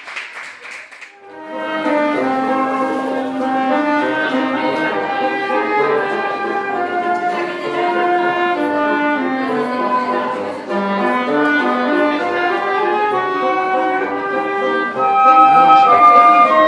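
Woodwind quartet of flute, bassoon and two clarinets playing a classical piece together. The ensemble comes in about a second and a half in, with the bassoon carrying the low line under the flute and clarinets.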